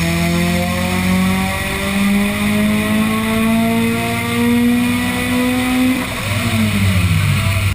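Turbocharged car engine, fitted with a BorgWarner EFR 7163 twin-scroll turbo, pulling hard at full throttle with its pitch climbing steadily for about six seconds. Near the end the throttle closes and the revs fall away.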